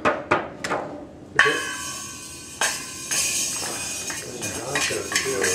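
Toy drum kit struck with a drumstick: a few quick taps, then a loud cymbal hit about one and a half seconds in that rings on for over a second, followed by more irregular hits on the cymbal and drums.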